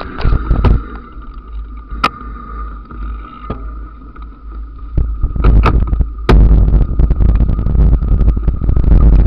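Wind buffeting the microphone of an action camera on a mountain bike riding down a rough grassy track, with sharp knocks and rattles as the bike hits bumps. The rumble eases for a few seconds and comes back heavily about six seconds in, over a thin steady whine.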